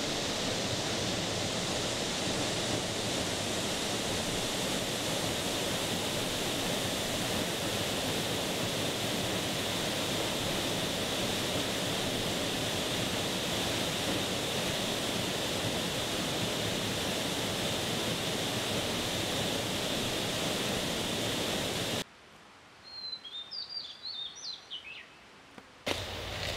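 Steady rushing roar of a waterfall that cuts off suddenly about 22 seconds in. It leaves quiet forest air in which a small bird chirps a few times.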